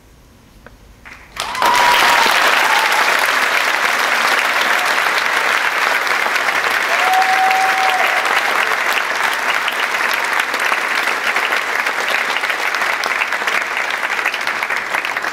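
Audience applause in a theatre breaks out suddenly about a second and a half in, after a hush, and continues as dense steady clapping that thins slightly near the end.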